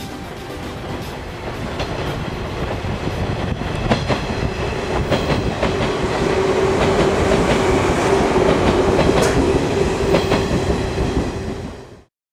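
Electric train passing over a level crossing, its wheels rumbling with sharp clacks over the rail joints. It grows louder through the first half and a steady hum joins it about halfway, then the sound cuts off suddenly near the end.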